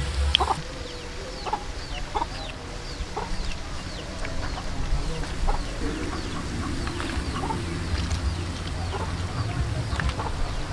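Chickens clucking, with many short, high, falling chirps throughout.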